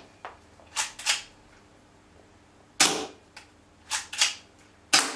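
Spring-action M92B BB pistol being fired twice, each sharp snap of the spring piston coming about a second after a pair of lighter clicks as the slide is pulled back and released to cock it.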